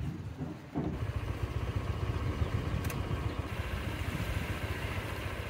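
A small engine running steadily, a low fluttering rumble that comes in about a second in, with one sharp click partway through.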